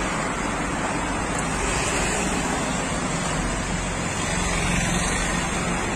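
Steady road traffic noise: a continuous rushing hum of cars moving on a city road.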